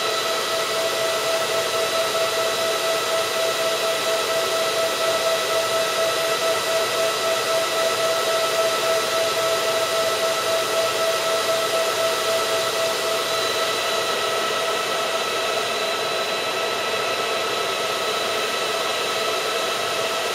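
Chenbro RM91250 50-bay storage server running just after power-on: its cooling fans give a steady whine of several tones over a rush of air, loud enough to drown out speech.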